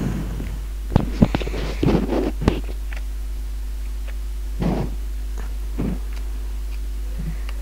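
Computer keyboard keystrokes: a quick run of sharp clicks between one and two and a half seconds in, then two softer taps near the middle, over a steady low electrical hum.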